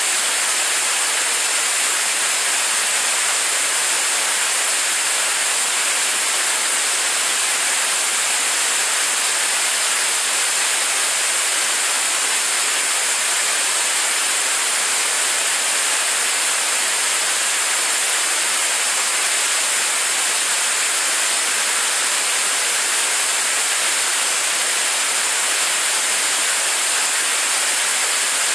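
75-tonne-thrust kerosene and liquid-oxygen rocket engine firing steadily on a test stand during a long-duration hot-fire test: a constant rushing noise of exhaust that holds an even level throughout, with no change in pitch or sudden sounds.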